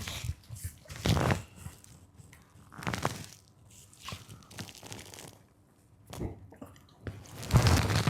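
A person eating close to the microphone: chewing and mouth sounds in about five short, separate bursts, with quiet between them.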